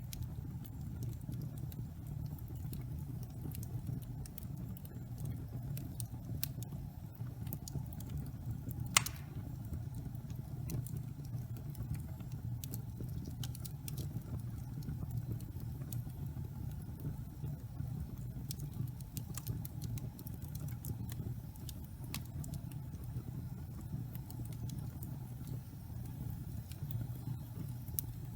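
Wood fire burning in a fireplace: a steady low rumble of flames with scattered crackles, and one sharp, louder pop about nine seconds in.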